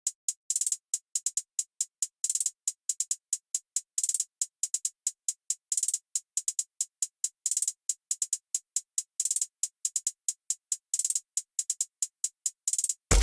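Electronic background music: a drum-machine beat of quick, crisp high ticks and short rolls, with hardly any bass.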